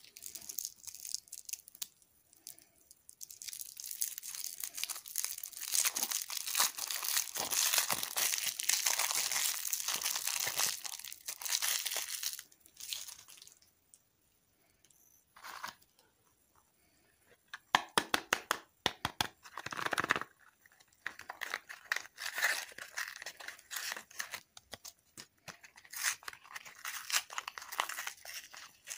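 Crinkly candy wrappers being torn and peeled open by hand: a long stretch of crinkling and tearing as a lollipop is unwrapped. After a lull there is a run of sharp clicks, then more crinkling and tearing as a packet is ripped open.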